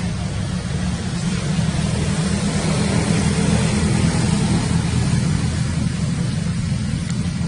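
A steady low engine rumble from a vehicle running nearby, with a hiss over it, swelling a little around the middle.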